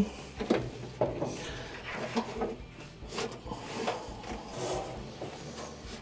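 Irregular light knocks, clicks and scrapes of hands working the dryer's drive belt and spring-loaded idler pulley under the drum.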